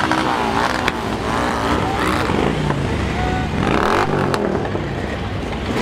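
A column of motorcycles riding slowly past, many engines running at once, with engine notes rising and falling as riders blip their throttles.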